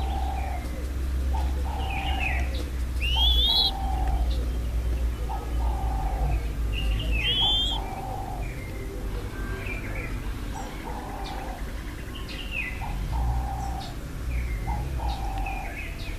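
Turtle dove cooing: a low two-part coo, a short note then a longer one, repeated about every two seconds. Other birds chirp higher in between.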